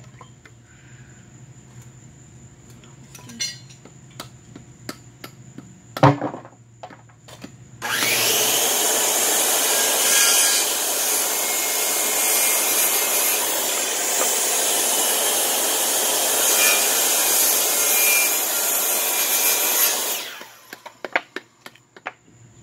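A loud knock about six seconds in. Then a handheld circular saw starts about eight seconds in, cuts through an old, dry, unpainted wooden brace for about twelve seconds, and winds down.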